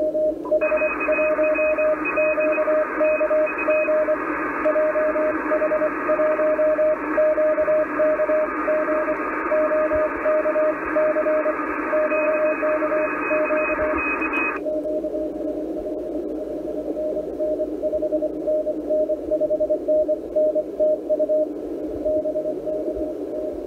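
Morse code (CW) received on an ICOM IC-746 HF transceiver: a keyed Morse tone steadily sending over band hiss. About half a second in, the narrow FL-100 500 Hz CW filter is switched out and the sound opens into a much wider hiss with a second, fainter and higher-pitched Morse signal. About fourteen seconds in, the narrow filter is switched back and the hiss and second signal cut off.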